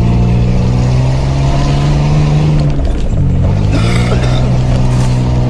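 A 4x4 off-roader's engine running steadily under load, heard from inside the cabin. Its note dips briefly about three seconds in, then picks up and holds again.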